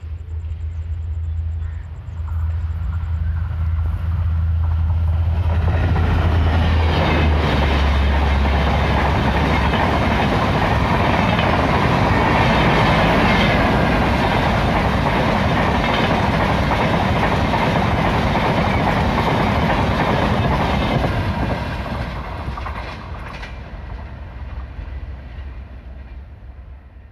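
EMD WDP4D diesel-electric locomotive's two-stroke V16 engine drones low as it approaches at speed. The locomotive and its LHB AC coaches then rush past with wheels clattering on the rails. The noise fades away over the last few seconds as the train recedes.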